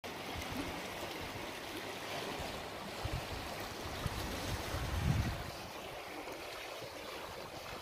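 Shallow river flowing steadily, a constant rushing hiss of water. A few low thumps hit the microphone, the loudest about five seconds in.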